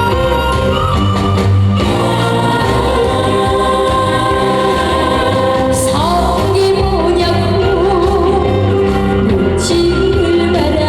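A female singer singing a Korean trot song live over a loud backing track, with wavering vibrato on her held notes.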